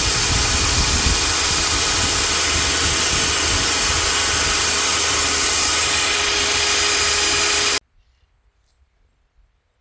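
Meec Tools 2000 W table saw with a 250 mm blade running steadily at full speed, a continuous motor whine. It cuts off abruptly about three-quarters of the way through, leaving near silence.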